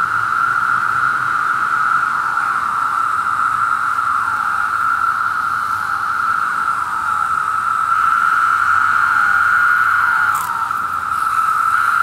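A dense chorus of 17-year periodical cicadas: a loud, steady droning hum, with single calls standing out every second or two, each ending in a falling slur.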